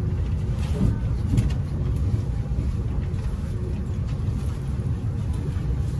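Low, steady rumble inside the cabin of an E257 series 5500 express electric train as it rolls slowly along the station platform, with a few faint clicks about a second in.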